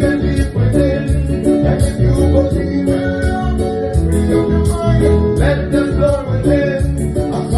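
A band playing a song live in rehearsal: guitar and bass over drums, with a steady cymbal beat about twice a second.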